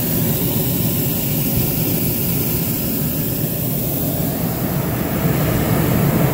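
Hot-air balloon's propane burner firing in one long, steady blast.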